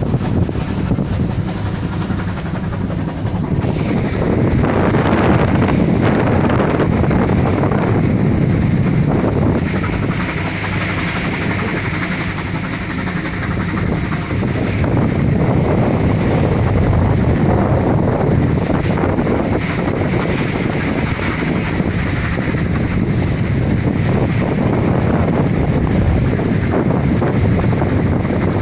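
Strong wind buffeting the microphone on a squid-fishing boat in heavy seas, with the low rumble of the boat's engine and the sea underneath. Loud and dense throughout, easing slightly for a few seconds in the middle.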